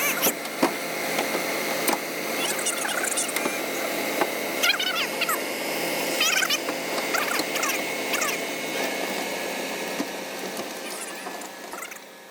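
John Deere 450K LGP crawler dozer running with a steady whine, with scattered clicks and short squeaks over it. It fades out near the end.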